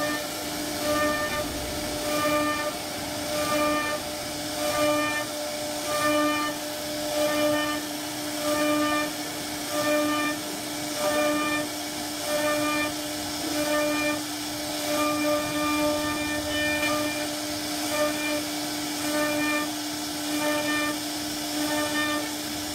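CNC router spindle whining steadily as its bit carves into a wooden door panel. The whine swells and eases in a regular rhythm, about once every 1.3 seconds.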